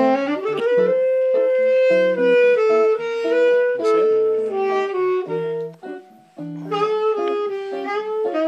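Tenor saxophone playing a slow bossa nova melody of long held notes over Gibson ES-335 guitar chords. The playing dips briefly about six seconds in.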